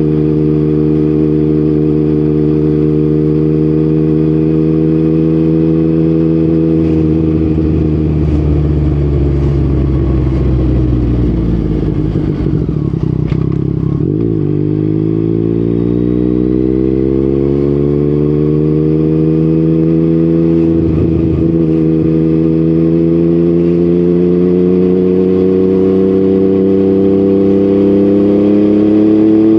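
Yamaha MT-09's three-cylinder engine through an Akrapovic exhaust while riding. The note slowly falls for the first half as the bike rolls off, dips briefly around the middle, then climbs steadily under a long, gentle acceleration.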